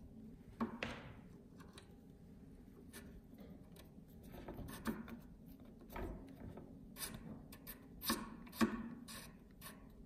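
Irregular light clicks, knocks and short scraping rubs, the loudest pair about eight and a half seconds in, over a faint low hum.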